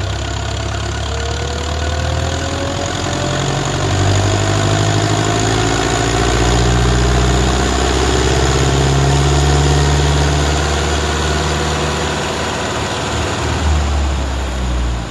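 Turbocharged Ursus C-360 tractor's four-cylinder diesel engine running under load on a roller dynamometer. The turbocharger whistles in a thin whine that rises in pitch through the first half.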